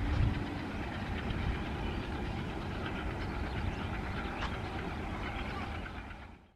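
A diesel-hauled passenger train running away along the track: a steady rumble of coaches on the rails, fading out near the end.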